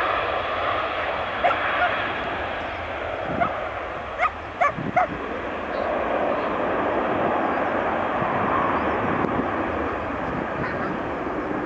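Boeing 767's jet engines at takeoff thrust as the airliner lifts off and climbs away, a steady rushing noise throughout. A few short, sharp calls cut through it, the loudest three in quick succession about four to five seconds in.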